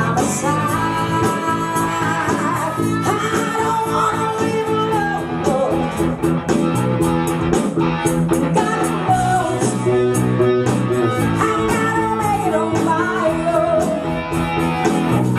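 Live rock band playing: electric guitar over bass and drums, with a woman singing into a microphone.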